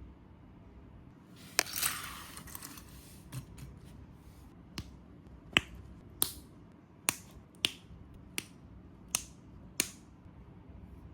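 Hard plastic parts of a snap-fit model kit clicking sharply about nine times at uneven intervals, after a brief rustle about a second and a half in.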